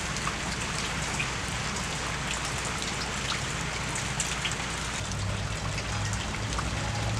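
Steady rain falling on wet ground and water, an even hiss scattered with small drop ticks. A faint low hum comes in about five seconds in.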